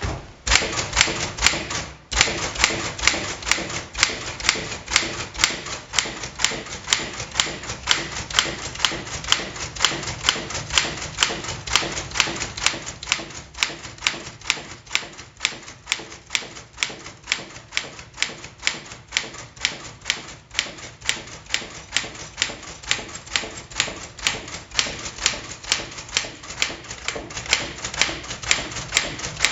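Smith Corona Sterling manual typewriter being typed on: steady keystroke clacks of the typebars striking, about three a second, with a short pause about two seconds in.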